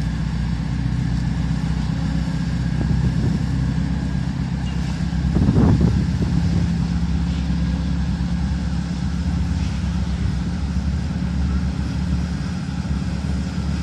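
Diesel engines of a double-ended car ferry running with a steady low drone as it pulls away from the quay. A brief louder rush of noise comes about halfway through.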